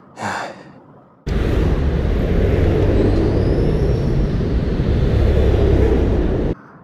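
Wind noise on a motorcycle helmet camera's microphone, with the motorcycle running as it rides along a motorway. The noise starts abruptly about a second in and cuts off sharply near the end, after a brief voice sound at the start.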